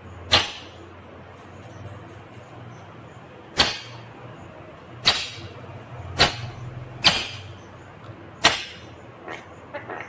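Rose-ringed parakeet giving six short, loud, harsh screeches a second or so apart, followed near the end by a few softer chattering calls.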